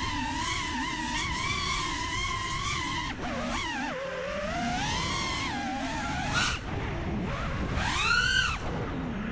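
FPV freestyle quadcopter's brushless motors and propellers whining. The pitch holds steady for about three seconds, then swoops down and up with sharp throttle changes, and climbs and falls steeply once near the end.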